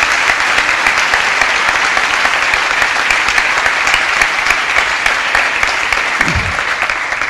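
Audience applauding steadily, with dense clapping that eases off slightly near the end.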